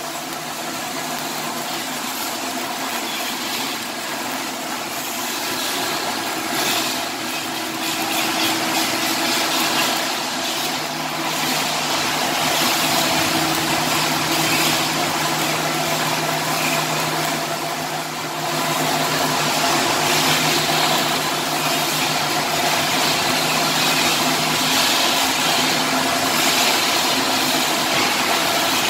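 Shielded metal arc (stick) welding: the electrode's arc crackling and hissing steadily, over a steady low machine hum.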